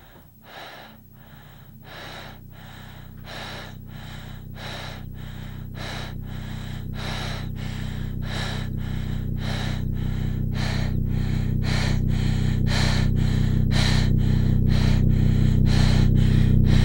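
Quick, rhythmic panting breaths, about two a second, over a steady low drone that grows steadily louder: a tense film soundtrack.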